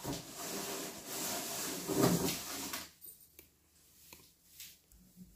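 Rustling and scraping as a section of an artificial Christmas tree is pulled out of its cardboard box, then a few faint knocks.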